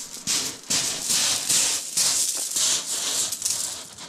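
Footsteps crunching across a shingle beach, loose pebbles grinding underfoot at about two steps a second, fading near the end.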